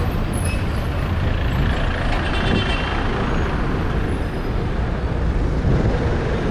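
Street traffic: a city bus's engine rumbling close by as it passes, with other cars moving through the junction, and a brief higher hiss about two and a half seconds in.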